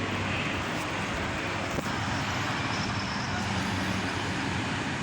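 Steady traffic noise: an even rushing hiss with a faint low hum, and one small click about two seconds in.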